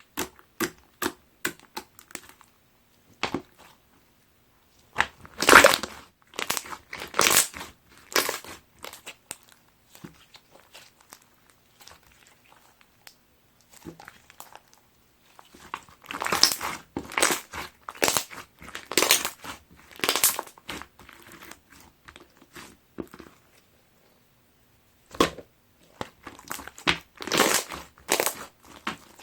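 Mint-chocolate slime with small plastic deform blocks mixed in, squeezed and pressed by hand, giving bursts of crunchy crackling and popping with short quiet pauses between squishes.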